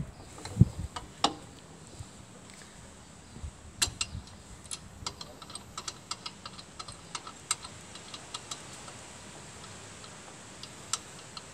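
Irregular light metallic clicks and ticks, sparse at first and more frequent from about a third of the way in, from hand-working a Motobécane D45 side-valve engine with its cylinder head off. The crankshaft is being rocked by hand against a screwed stop over the cylinder to find top dead centre.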